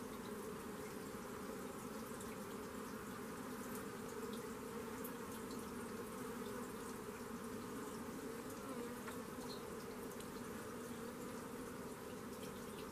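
Steady low buzz of flying insects, unbroken and even in level, with a few faint ticks scattered over it.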